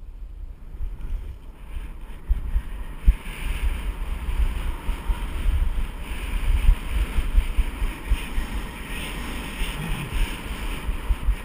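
Wind buffeting the microphone of a camera carried by a skier on the move, a gusty low rumble. From about three seconds in, the hiss of skis sliding over packed snow rises under it.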